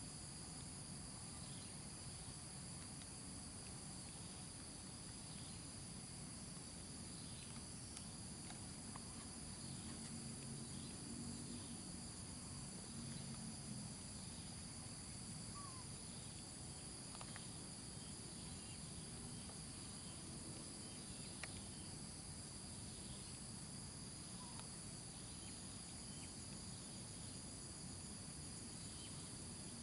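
Steady, high-pitched chorus of insects, unbroken throughout, with a few faint short chirps now and then.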